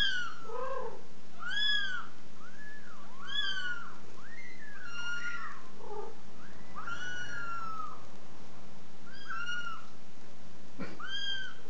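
Very young kittens mewing over and over: short, high cries that rise and fall, about one a second, sometimes two at once, with an occasional lower-pitched mew among them.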